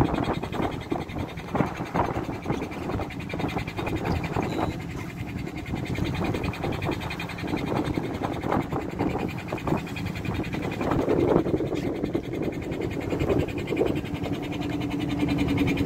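Motor of a small fishing boat at sea running steadily, with irregular knocks and splashes over it. A steady hum joins near the end.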